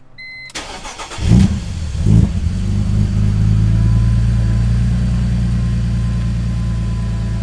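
BMW E46's inline-six engine being started: a short electronic chime, about a second of starter cranking, then the engine catches with two quick revs and settles into a steady idle.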